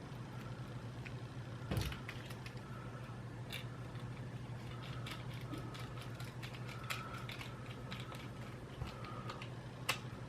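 Small screwdriver driving the silver screw into a PS4 controller's plastic shell: faint scattered clicks and light creaking, with a few sharper clicks. A steady low hum runs underneath.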